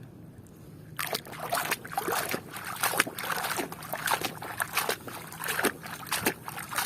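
Water sloshing and splashing in a basin as toy construction vehicles are swished about and rinsed, in quick irregular splashes starting about a second in.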